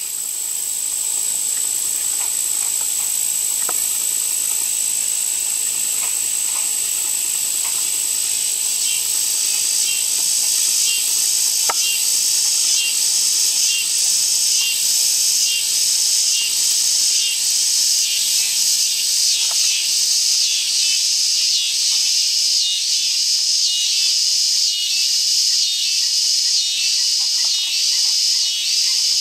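Insects, such as crickets, trilling in a steady high-pitched chorus. About a third of the way in, a second layer with an even pulsing rhythm builds up over it.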